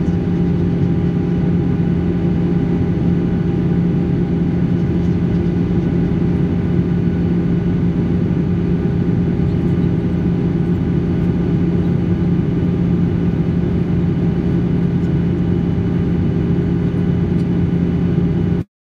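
Jet airliner cabin noise in flight: a loud, steady drone of engines and airflow with several unchanging hum tones, cutting off abruptly near the end.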